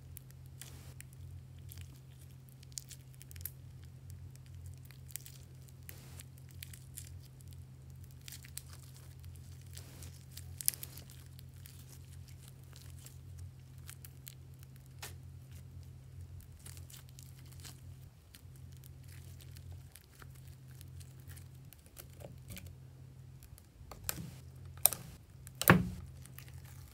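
Sticky slime being squeezed and kneaded by hand, giving a run of small crackles and clicks as it stretches and tears. A few louder pops come near the end as the fingers press into the slime in the dish, over a steady low hum.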